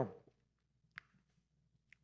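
Near silence: room tone, with two faint short clicks, one about a second in and a fainter one near the end.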